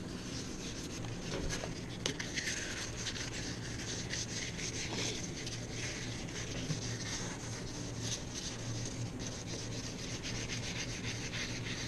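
Fine 2500-grit wet sandpaper rubbed lightly back and forth over the matte clear coat on a motorcycle fuel tank, making a continuous soft rasp of many short strokes. The sanding is only meant to smooth the clear coat, not remove it.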